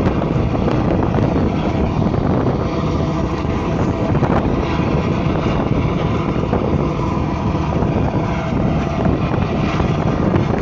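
Wind buffeting the microphone on the open deck of a moving cruise boat, over the boat's steady low engine drone. The noise is loud and even throughout.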